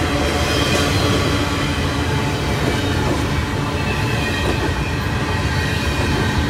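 Double-stack container freight train rolling past close by: a steady rumble of steel wheels on the rails, with a faint high wheel squeal in the first few seconds.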